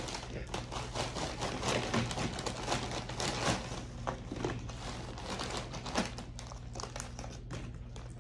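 Crinkling of a Doritos chip bag and the rustle and clatter of tortilla chips pulled out by the handful onto a paper plate: a dense run of small crackles.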